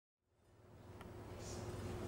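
Room tone of a quiet performance hall fading in from silence: a steady low hum with a faint tick about a second in.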